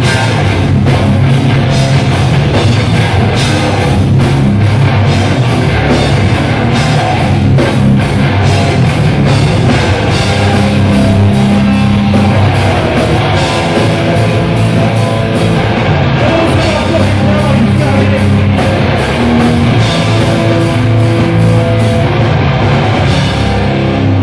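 Hardcore metal band playing live and loud: distorted electric guitars, bass guitar and a drum kit hit fast and hard.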